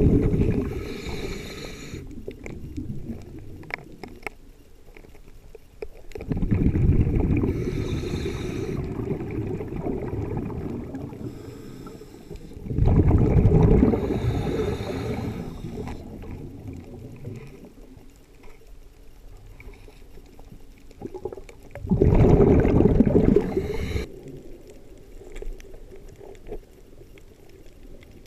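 Scuba diver's exhaled breath bubbling out of the regulator underwater. It comes as a burst of about two seconds every six to nine seconds, four times, with quieter water noise between.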